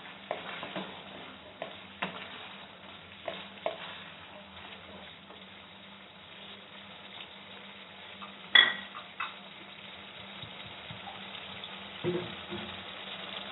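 Chicken pakoras being stirred with a spatula through boiling chili sauce in a wok: the sauce sizzles and bubbles softly while the spatula scrapes and knocks against the pan, with one sharper ringing knock a little past halfway.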